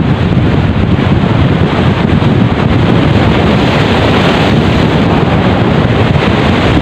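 Strong wind buffeting the microphone over sea waves breaking against shoreline boulders, with one wave crashing and spraying about four seconds in.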